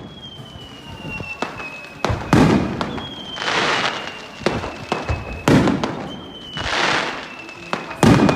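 Aerial firework shells bursting, a sharp bang about every three seconds, each followed a second later by a crackling shower. A faint whistle falls slowly in pitch between the bursts.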